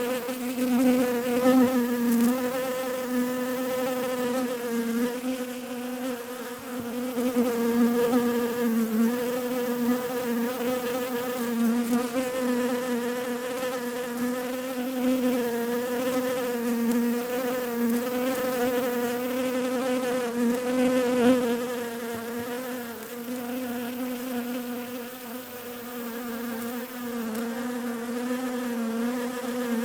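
Bee buzzing in a steady hum whose pitch wavers slightly and whose loudness swells and fades.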